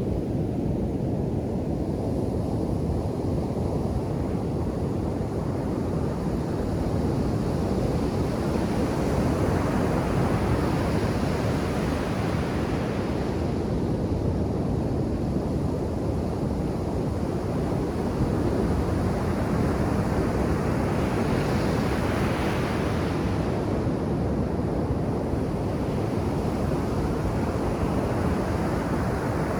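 Ocean surf breaking on a beach: a steady low rumble of waves, with the hiss of a breaking wave washing in swelling about ten seconds in, again a little past twenty seconds, and near the end.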